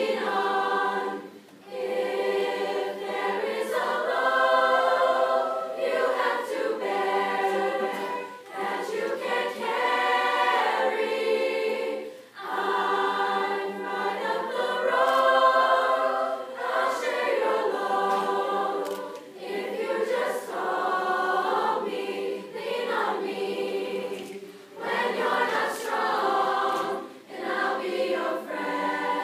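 Choir singing a cappella, in sustained phrases of a few seconds broken by short pauses.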